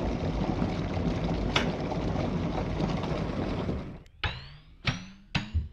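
A steady rushing noise with a low hum underneath fades out about four seconds in. Then come a few sharp, evenly spaced percussive hits, with a short pitch glide on some of them, as the drums of the background music start.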